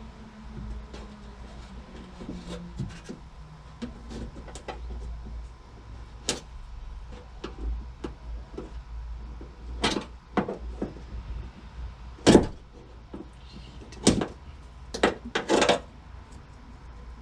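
Scattered plastic and metal clicks and clunks of the liftgate latch's connections being undone, with several sharp knocks in the second half, over a low steady rumble.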